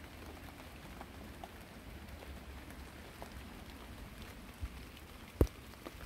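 Faint steady outdoor background noise with a low rumble and scattered light ticks, broken by one sharp click about five and a half seconds in.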